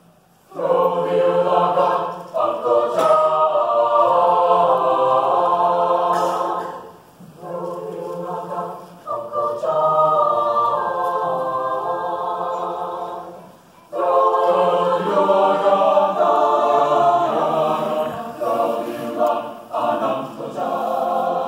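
A choir singing in long sustained phrases. It comes in about half a second in and breaks briefly between phrases twice.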